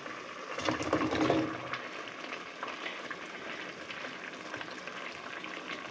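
Cubed squash tipped from a bowl into a pot of boiling broth, the pieces splashing in over about a second, then the pot bubbling steadily with a few light clicks as the last pieces are shaken out.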